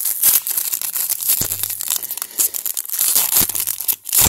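Foil wrapper of a Topps baseball card pack crinkling and tearing as it is torn open by hand, with a few dull knocks.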